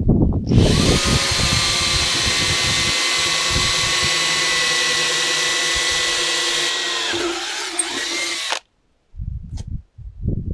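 A handheld power tool cutting fiberglass to enlarge a switch-panel cutout: a steady high whine over a hiss that runs about eight seconds, drops in pitch near the end and then stops abruptly. Low knocks come just before it starts and after it stops.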